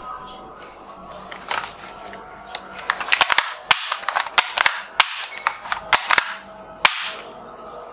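A plastic toy pump-action shotgun being handled and its pump worked: a run of sharp, irregular plastic clicks and clacks, densest in the middle, ending with one sharp crack near the end.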